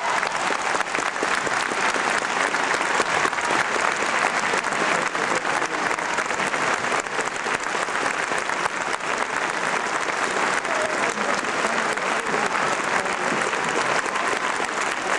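Concert audience applauding steadily, a dense even clapping that fills the hall.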